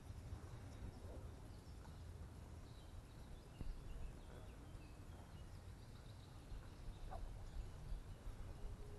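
Quiet lakeside ambience: a low, steady rumble on the action camera's microphone, with faint scattered bird chirps and a soft tap about three and a half seconds in.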